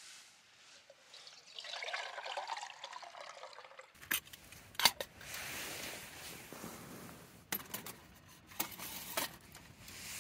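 Liquid being poured into a container for a couple of seconds, then several sharp clicks and knocks of camping gear being handled.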